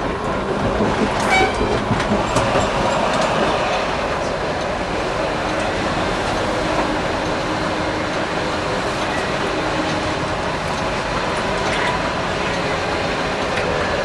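Electric tram running along its rails, heard from the driver's cab: steady rolling and motor noise, with a few sharp clicks from the wheels over points and crossings in the first few seconds, and a single click or two later on.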